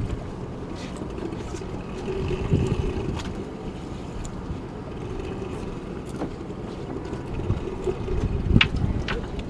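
Steady low rumble of a sportfishing boat out on the water, with scattered light clicks and knocks from handling on deck, the loudest a few knocks near the end.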